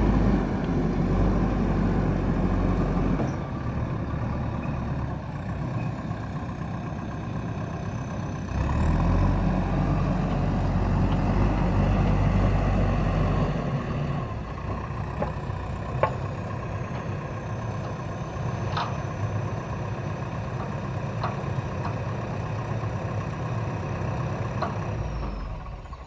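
Diesel engine of a JCB backhoe loader running. It is louder under load for the first three seconds and again from about nine to fourteen seconds, and settles lower in between and afterwards. A few light knocks come in the second half.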